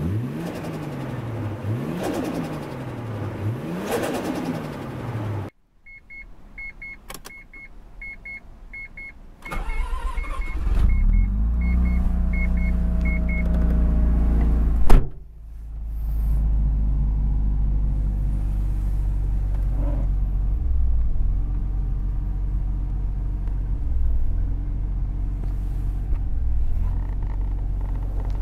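Mazda RX-7 FD3S twin-turbo 13B rotary engine being started: a dashboard chime beeps about twice a second, then the engine cranks and catches. A brief loud burst comes about fifteen seconds in, and the engine then settles into a steady idle; the car is running again after seven years in storage but still needs work. It is preceded by an intro sound whose pitch sweeps down and up.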